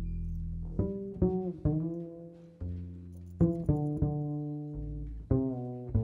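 Pizzicato low strings playing a slow melodic line of single plucked notes, each one left to ring and fade.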